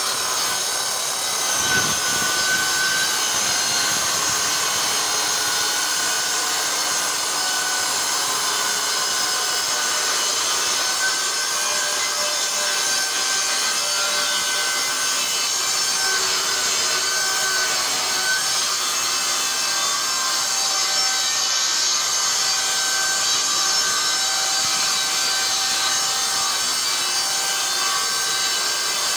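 Handheld electric circular saw, blade tilted for a bevel, ripping a chipboard panel along a fixed straightedge. It starts up and comes up to full cut within the first second or two, then runs steadily under load through the cut.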